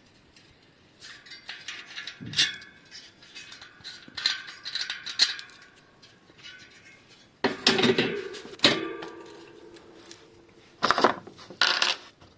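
Bicycle wheel parts, such as spokes, nipples and rim, being handled and clinking together in irregular light metallic clicks. About halfway through, a louder knock leaves a steady metallic ring for about three seconds, followed by two more sharp clatters near the end.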